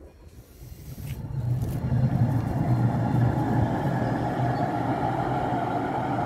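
Tram approaching and running past, growing louder over the first two seconds, then a steady, loud rumble with a low hum.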